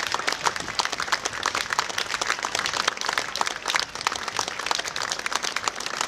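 Crowd applauding: many hands clapping steadily and densely, with no pause.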